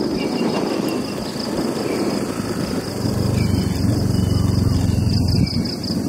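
Motorbike engine running steadily while riding over a dirt track, with wind and road noise.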